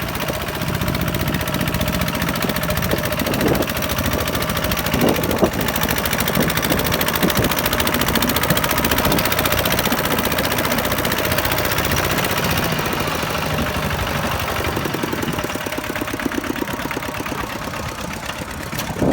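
Diesel engine of a tractor or similar farm machine running steadily, with a few short knocks about a third of the way in.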